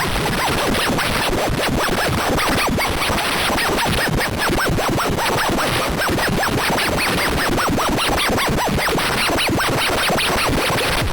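Loud, heavily distorted glitch audio effect: a rapid, dense stutter of chopped sound fragments, like record scratching, holding at a steady level throughout.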